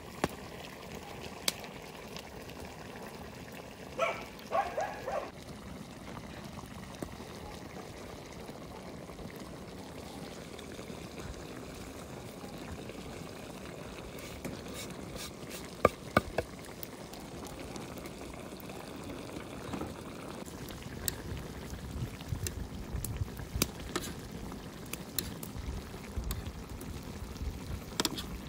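Liquid bubbling and trickling steadily, with scattered clicks and pops. A brief pitched sound comes about four seconds in, and low rumbling builds toward the end.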